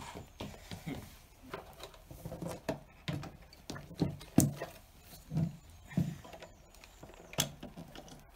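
Footsteps scuffing on a grit-covered concrete floor, then a hard plastic carry case being handled, with irregular knocks and scrapes; the sharpest knock comes about four and a half seconds in.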